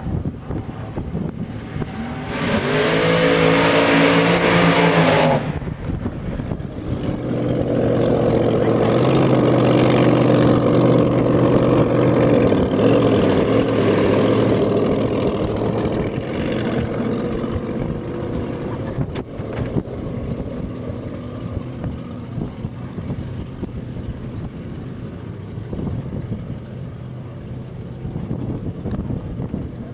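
Drag racing dragster engine: a short burst of hard revving about two seconds in, lasting about three seconds, then the engine running loud for about ten seconds before slowly fading, with lower engine noise after.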